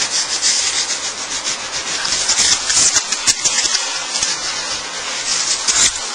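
Strips of blue masking tape being torn and rubbed down by hand onto thin sheets of wood veneer: a continuous dry, crackling friction with many small clicks.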